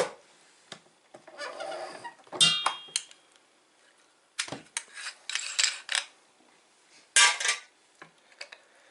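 Metal parts of a meat grinder head being taken apart: a scrape, then a series of clinks and clanks as the ring, cutting plate and blade are handled.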